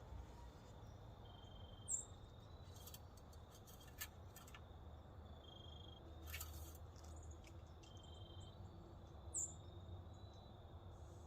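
Faint cricket chirping: short, evenly pitched high chirps about every two seconds. Two brief, sharper high chirps come at about two seconds in and near the end, with a faint click or two between them.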